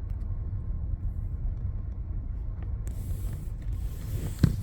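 Low road and engine rumble inside a car driving slowly. A hiss joins in about three seconds in, and there is a single short knock near the end.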